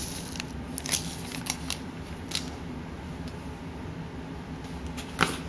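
Faint crinkling of a paper sweetener packet being emptied into a glass bowl, a few light ticks over a steady low hum, with a sharper tap near the end.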